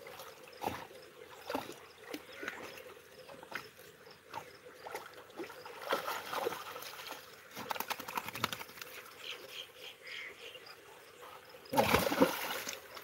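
A German shorthaired pointer puppy and a greyhound splashing and sloshing about in shallow muddy water, in scattered short splashes, with a louder burst of splashing near the end.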